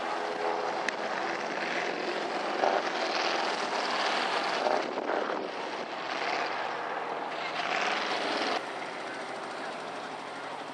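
Engine of a 2½-ton Chevy mud truck running hard at high revs as the truck churns through deep mud, then easing off sharply about eight and a half seconds in as it climbs out onto shallower ground.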